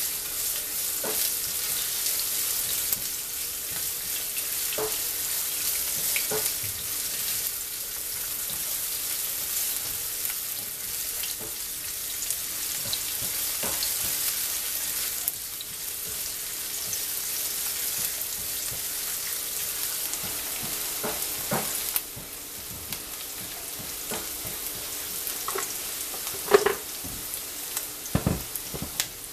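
Sliced onion sizzling in hot oil in a nonstick frying pan as it sautés toward translucent, stirred with a silicone spatula that scrapes and knocks the pan now and then. The sizzle eases somewhat about two-thirds of the way through.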